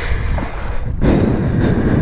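Heavy, rhythmic breathing close to the microphone, about one breath a second, the loudest in the second half, from someone straining to move a heavy motorcycle through shallow water.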